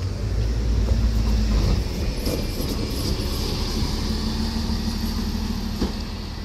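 City bus passing close and pulling away. Its engine and tyres make a steady low rumble, loudest in the first two seconds as it goes by, then a little softer as it drives off, with a light click near the end.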